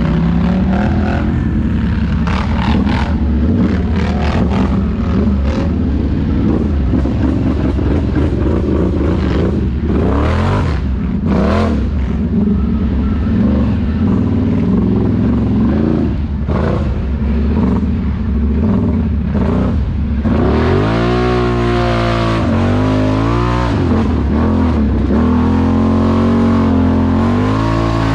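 ATV engine running under riding load, its pitch swinging up and down repeatedly as the throttle is worked in the second half.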